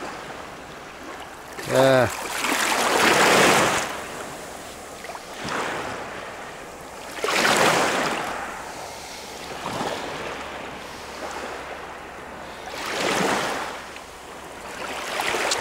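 Sea waves breaking and washing up a pebbly beach, surging every few seconds. A short voiced sound from a person comes about two seconds in.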